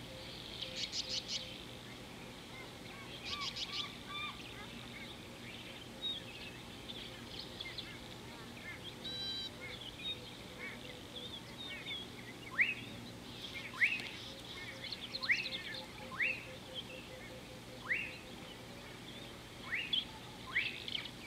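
Wild birds calling and chirping: two quick rattling trills in the first few seconds, scattered short chirps, then a run of sharp whistled notes about once a second in the second half, over a steady low hum.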